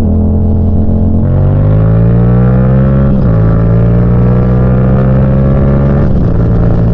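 Yamaha FZ-07's 689 cc parallel-twin engine pulling under acceleration while riding, its pitch climbing and then dropping at an upshift about three seconds in and again about six seconds in.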